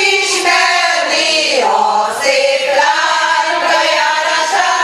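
Group of women singing together as a small choir into microphones, holding long sung notes.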